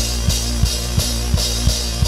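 Live drum kit playing a steady beat: kick drum strikes about three times a second with cymbal hits on top, over a steady low tone, without vocals.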